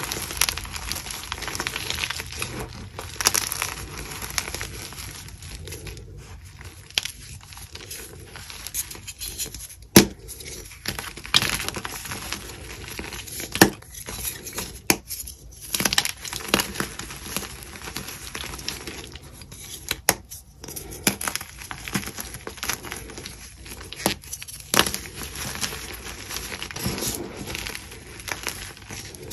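Dyed gym chalk blocks crushed and crumbled by hand: a continuous crunching and crumbling, broken by several sharp snaps as blocks are snapped in two. The loudest snap comes about ten seconds in.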